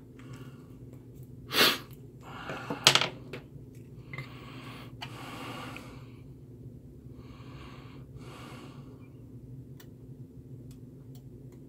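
Heavy breathing close to the microphone: a series of breaths in and out, the two loudest and sharpest about two and three seconds in, over a low steady hum.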